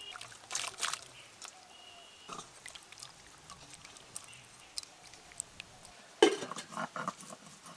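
Faint clinks and scrapes of a metal spatula stirring salted hilsa pieces in a steel bowl of hot water, then a metal lid set over the bowl. About six seconds in comes a louder rough, noisy sound lasting about a second and a half.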